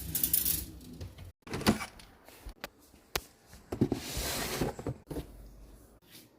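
Rustling and knocking of things being moved around, with a few sharp clicks and a longer sliding swish about four seconds in.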